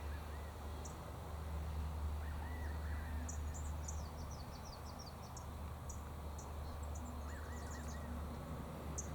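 Small birds calling: short, very high chirps scattered through, with a quick run of falling notes about four seconds in and a few lower looping notes repeated twice, over a steady low rumble.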